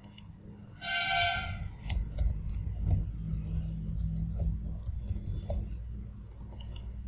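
Typing on a computer keyboard: a run of quick, irregular key clicks, entering an email address into a sign-in form. About a second in there is a short tone, and a low hum sits underneath.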